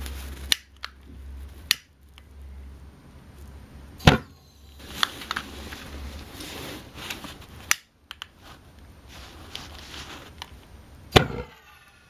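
A homemade tin-can valveless pulsejet being lit with a click lighter: a series of sharp clicks and small pops as the gas in the combustion chamber tries to catch. Two louder bangs, about four seconds in and near the end, each leave a short ringing that falls in pitch.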